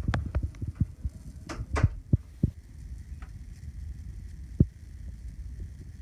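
A quick run of dull knocks and clicks, then a steady low hum with one sharp thump about four and a half seconds in.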